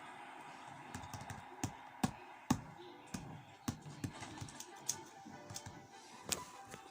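Irregular sharp clicks and taps, one or two a second, like keys being struck, over quiet background music.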